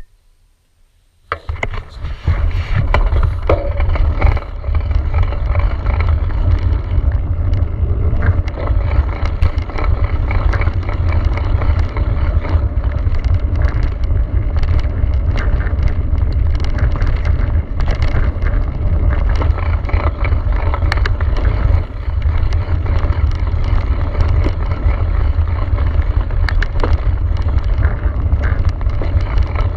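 Mountain bike riding fast down a dirt and gravel forest trail: wind buffeting the microphone as a heavy rumble, tyres on the dirt, and frequent clicks and clatters as the bike rattles over bumps. It starts about a second in after a moment of near silence.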